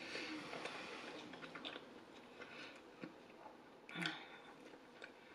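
Faint close-up chewing of pizza, with small wet mouth clicks and smacks, and one louder mouth sound about four seconds in as the slice comes up for another bite.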